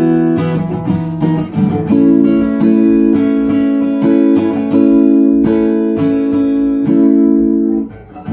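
Tagima jumbo-body maple acoustic guitar strummed in ringing chords, with a short break in the playing just before the end.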